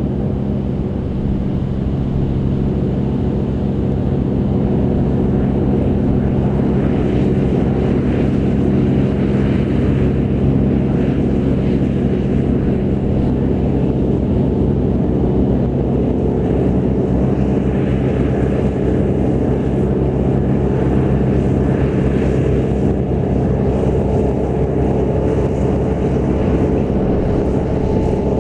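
John Deere tractor engine running at a steady, held speed while pulling and driving a McHale round baler baling grass.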